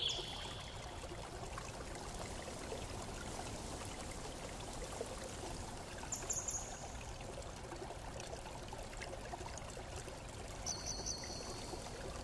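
Faint steady hiss with a few brief high-pitched chirps: a falling one right at the start, one about six seconds in, and a short cluster near the end.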